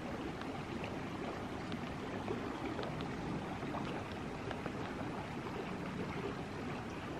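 Steady rush of a mountain creek flowing over rocks, with faint small splashes.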